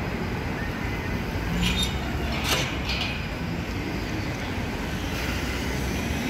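Steady road-traffic rumble of a busy city street, with a few short hissing noises about two to three seconds in.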